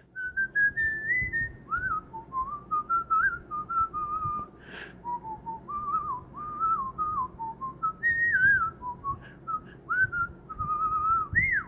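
A person whistling a wandering tune in short phrases that rise and fall in pitch.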